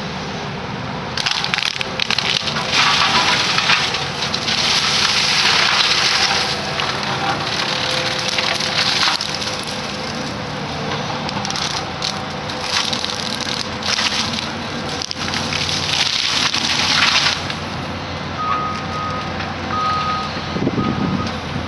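Excavator-mounted mower head grinding brush and small trees, in repeated bursts of shredding and splintering a few seconds apart, over the steady running of the excavator's diesel engine. A short, broken high beeping tone sounds near the end.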